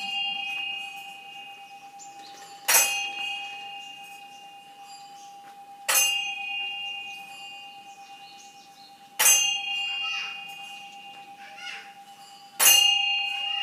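A bell-like metal tone struck four times, about every three seconds, each strike ringing on and fading before the next.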